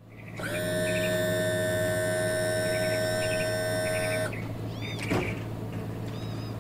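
An electronic intro sting: a chord of several held, ringing tones that swells in and cuts off suddenly after about four seconds. Under it and after it is a steady low hum, and short bird chirps come every second or so.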